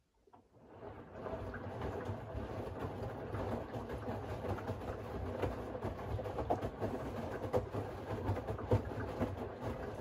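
Siemens iQ700 WG56B2090 front-loading washing machine starting up after a quiet pause: the drum turns, tumbling the wet laundry with irregular sloshing and soft knocks over a low motor hum.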